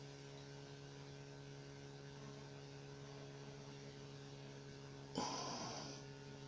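Steady low electrical mains hum, with one short noise about five seconds in that fades out within a second.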